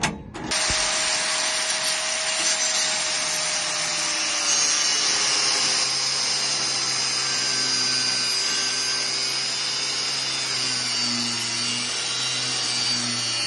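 Angle grinder cutting through the metal of a lock. It starts about half a second in and runs steadily, its motor's whine sagging slightly under load.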